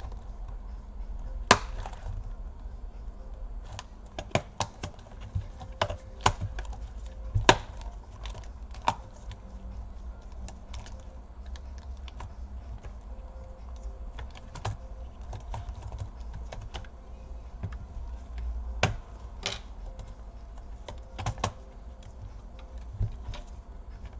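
Scattered, irregular clicks and taps from gloved fingers pressing on the keys and plastic trim of an HP EliteBook 2530p keyboard, with a low hum underneath. The plastic clicks come from the keyboard and its top cover strip being worked loose.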